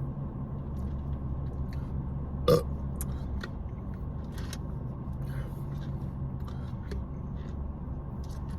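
A person burps once, short and loud, about two and a half seconds in, over a steady low hum, with a few faint small clicks.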